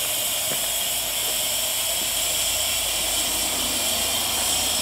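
Steady hiss of steam venting from the top of a fired 18-inch fire-tube boiler.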